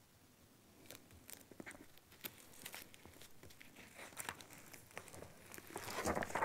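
Close-up crinkling and rustling with many small sharp clicks, starting about a second in and growing louder near the end.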